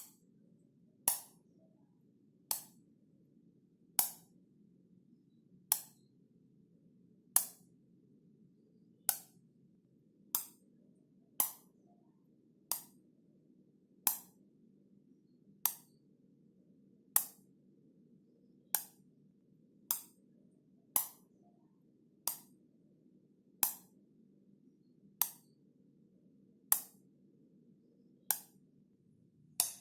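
Wall light switch being flipped on and off over and over, a sharp click roughly every second and a half.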